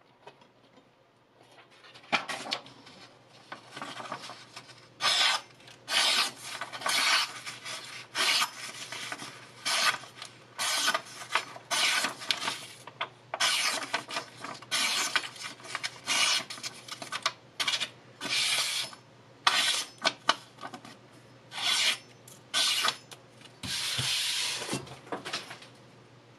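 A stainless-steel MYVIT chef knife slicing through sheets of printer paper in a paper-cut sharpness test: a long run of short, hissy slicing strokes, some twenty-five of them, with paper rustling between, the last stroke longer.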